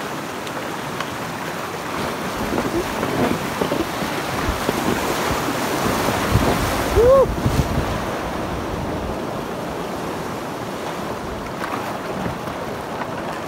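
River rapids rushing and splashing around a packraft as it runs through whitewater, louder in the middle of the passage. A short pitched sound comes about seven seconds in.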